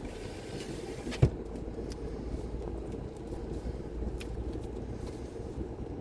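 Car running, a steady low rumble, with one sharp thump a little over a second in.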